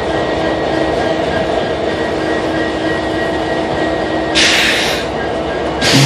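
BNSF diesel-electric locomotive idling with a steady engine drone and hum. There are two short bursts of air hissing, one about four and a half seconds in and another at the very end.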